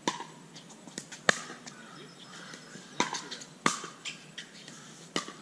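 Pickleball rally: paddles hitting the hard plastic ball, about six sharp pocks at irregular intervals, the loudest a little over a second in.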